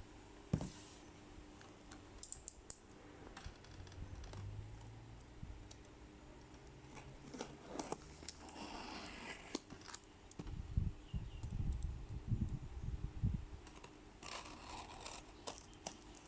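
Small product packaging being handled and opened by hand: scattered clicks and taps, a longer rustling scrape about eight seconds in, and a run of dull low thuds a few seconds later.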